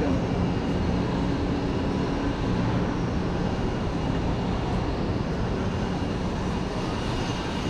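Steady low rumble of city background noise, a constant mechanical hum with no distinct events.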